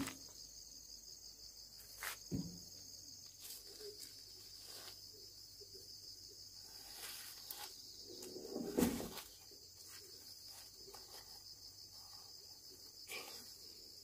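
Insects chirring in a steady, high continuous trill. A few faint knocks sound through it, the loudest about nine seconds in.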